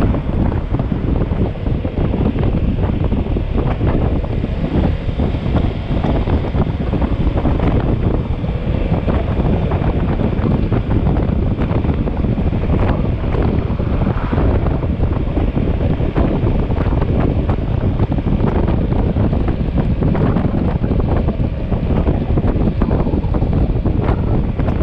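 Steady wind buffeting the microphone of a camera riding on a moving motorcycle, a loud rushing noise heaviest in the low end.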